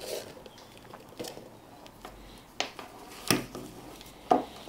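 Light clicks and taps of a headlamp and its magnetic charging cable being handled on a tabletop, about six separate knocks, the sharpest about three seconds in.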